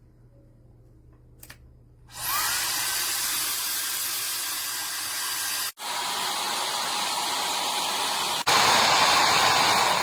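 SUPGALIY 1500 W mini ionic travel hair dryer switched on with a click and blowing with a steady rush of air. The airflow cuts out for a moment about halfway through, comes back, and steps up louder near the end, as on a change to the higher setting.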